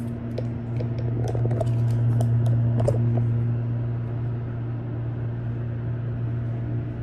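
Steady low hum of an elevator car in motion, with the rustle and scattered clicks of a hand-held phone being handled.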